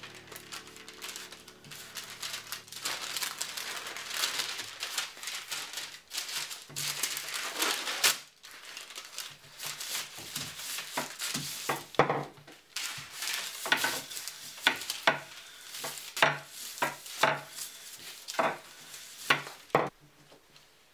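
Wooden rolling pin rolling tart dough between sheets of parchment paper: the paper rustles and crinkles with each stroke. From about halfway through come sharp clicks and knocks, one or two a second.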